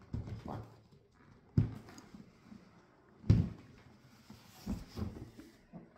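Large cardboard game box being handled and its deep lid slid up off the base, with dull thumps of cardboard, two louder ones about a second and a half apart, and rubbing between.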